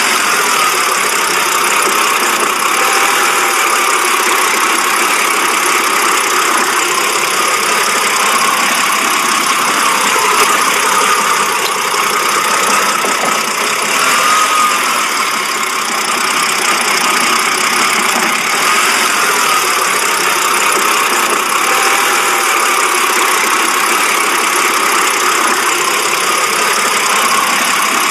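BMW engine idling rough. The note wavers slightly up and down every few seconds.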